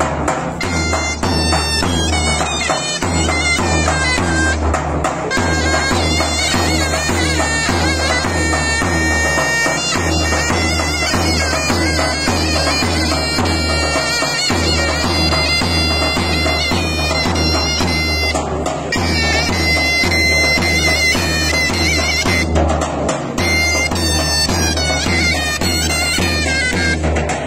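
Turkish davul and zurna playing a folk tune: the zurna's shrill, reedy melody rides over a steady beat from the large davul drum struck with a stick. The drum drops out briefly twice.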